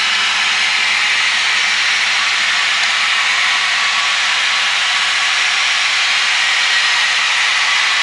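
Steady in-flight cabin noise of a small plane: a loud, even hiss of engines and airflow over a low steady hum.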